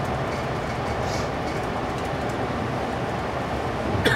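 Amtrak Pacific Surfliner passenger train heard from inside the coach while running at speed: a steady rumble and rush of wheels on rail with faint clicks. A sharp, louder knock comes near the end.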